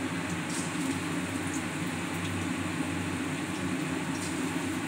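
Marinated, batter-coated chicken pieces frying in hot sunflower oil in a steel kadai: a steady sizzle with scattered faint crackles, over a low steady hum.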